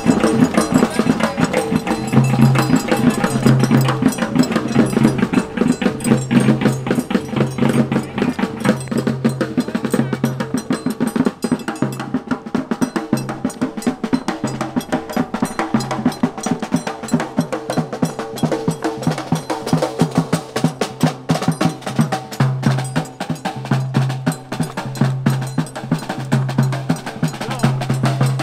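Guyanese masquerade band drumming: rapid stick strokes on a kettle (side) drum over a steady bass-drum beat, playing continuously for a dance.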